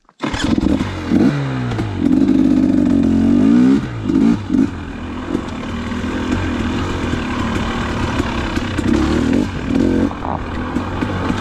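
2019 KTM 250 XC two-stroke dirt bike engine under way. Its revs rise and fall sharply several times over the first four or so seconds, then it runs at a steadier pitch with smaller throttle changes.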